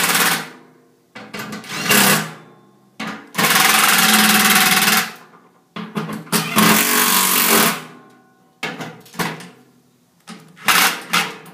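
Cordless drill spinning a socket to run down and snug the bolts of a blower motor's mounting legs, in several bursts of one to two seconds each, then a few shorter bursts near the end.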